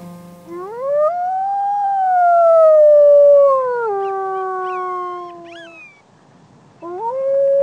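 Coyote howling: one long howl that rises, wavers and steps down in pitch, with a few short high yips near its end. A second howl rises near the end.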